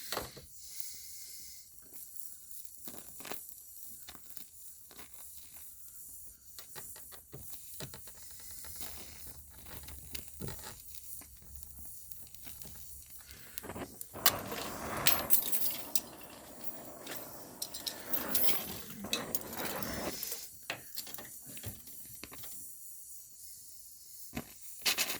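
Oxy-acetylene torch flame hissing, with scattered crackles and clicks as a thin filler rod is melted into sheet steel; the hiss grows louder for several seconds a little past halfway. The oxygen is almost out, so the flame keeps changing.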